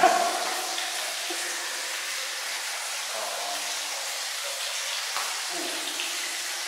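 Steady watery hiss and patter in a tiled hammam, typical of water running and splashing onto marble, under hands rubbing soapy skin. A short loud vocal exclamation comes right at the start.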